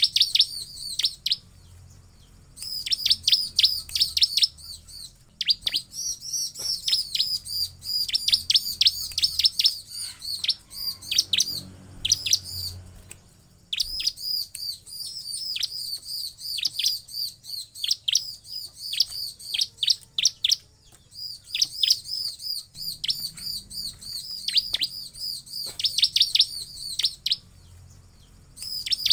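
Bar-winged prinia (ciblek) singing: long runs of rapid, sharp, high chips, each sweeping downward, several a second, broken by short pauses.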